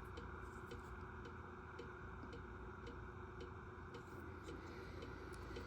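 Steady, even ticking, about two ticks a second, over a faint steady background hum.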